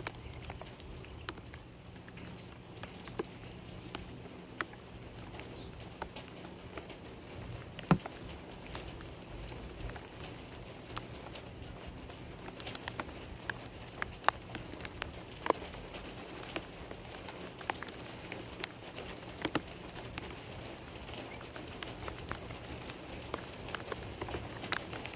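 Rain pattering as scattered drips and ticks, growing busier in the second half, with a sharper tap about eight seconds in. A small bird chirps a few times high up about two seconds in.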